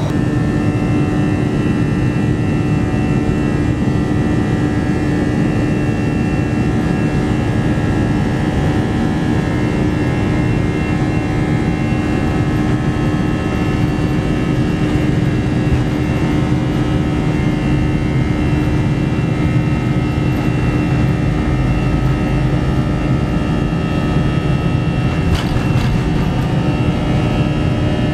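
Jet airliner cabin noise as the plane rolls along the ground: a steady engine hum with several constant tones over a heavy rumble. The low rumble grows heavier about two-thirds of the way through.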